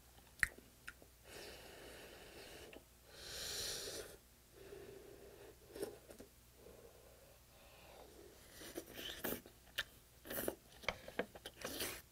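Close-up eating sounds: a single light click about half a second in, a breathy rush of air around three to four seconds in, then chewing with a run of quick, sharp crunches and clicks in the last few seconds.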